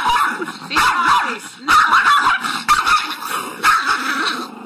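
Small dog barking and yipping in a run of short, loud bursts.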